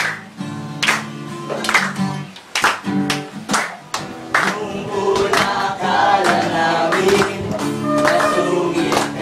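Acoustic guitar strummed with about one strong stroke a second, then a group of young men's voices starting to sing along about halfway through.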